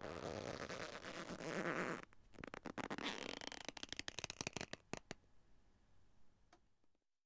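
A rustling, scraping noise for about two seconds, then a run of rapid sharp clicks and crackles that thin out and die away near the end.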